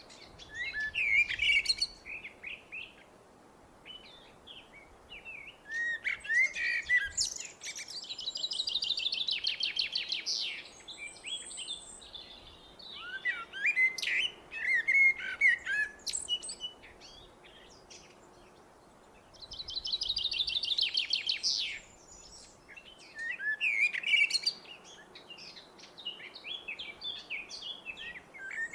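A blackbird singing: phrases of curving, whistled notes come every few seconds with short pauses between, and some phrases include a fast high trill.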